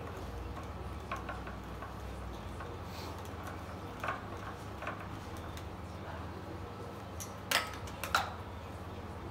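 Metal clicks and clinks of the compression tester's hose and fitting being handled on the engine, as the gauge is moved between cylinders during a cold compression test. A few scattered clicks, the two loudest close together near the end, over a steady low hum.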